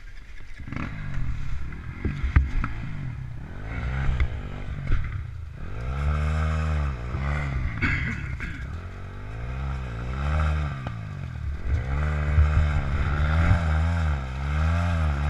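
Dirt bike engine revving up and down in repeated throttle bursts as it pulls away along a forest trail. A few knocks and scrapes come first.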